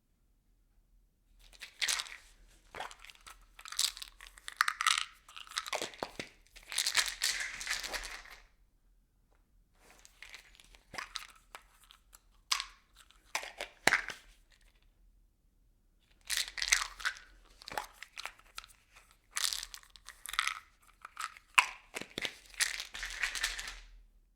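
Small objects rattling and clattering inside a plastic bottle, with the thin plastic crinkling, in three long bursts separated by short pauses.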